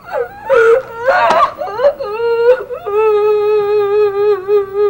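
A young woman bawling: a few short sobs, then a long wail held on nearly one pitch from about three seconds in.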